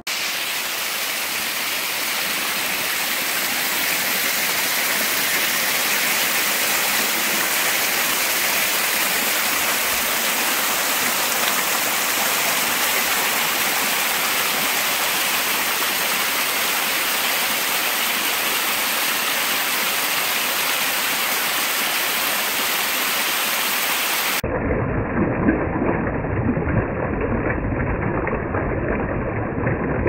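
Water of a small waterfall rushing over rock ledges: a steady hiss, changing about three-quarters of the way through to a closer, duller rush with more low rumble and small surges.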